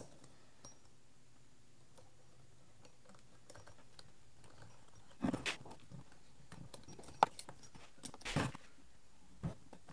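A few metallic clicks and scrapes of an Allen key working tight set screws out of a flat-belt step pulley, the pulley knocking as it is handled on the bench. The clicks start about five seconds in, one sharp click near the middle of them.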